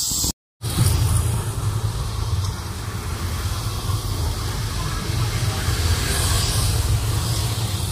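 Small petrol engine of a Honda irrigation water pump running steadily, with a steady low hum under a hissing wash of noise.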